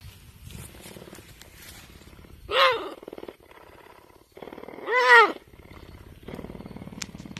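A big cat calls twice, two short, loud, rising-and-falling yowls about two and a half seconds apart, with a low pulsing rumble between and around them.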